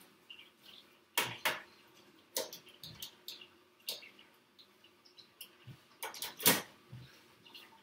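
Handling noise: irregular clicks and knocks as a phone and its charger are handled, the loudest knock about six and a half seconds in.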